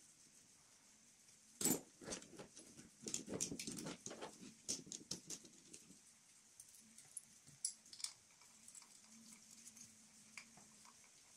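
Gloved hands handling and fitting the metal intake pipe on the engine: a sharp click about two seconds in, then a run of clattering and rustling, and scattered light clicks later.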